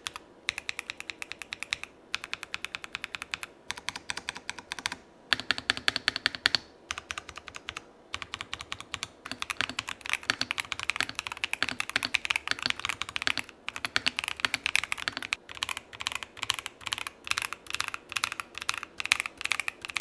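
Typing sound test on a Razer BlackWidow V4 75% mechanical keyboard with factory-lubed Razer Orange tactile switches: rapid keystrokes in runs of fast typing, broken by brief pauses.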